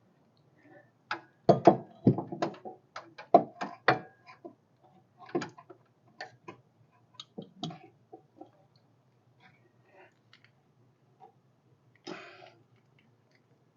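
Small metal parts clicking and knocking as they are handled and fitted to a replacement rear shock absorber. A quick, irregular run of clicks over the first several seconds, then a few scattered ones, with a brief scuff about twelve seconds in.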